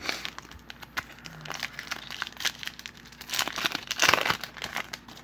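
Trading-card pack wrapper being torn open and crinkled, with a louder stretch of crinkling about four seconds in.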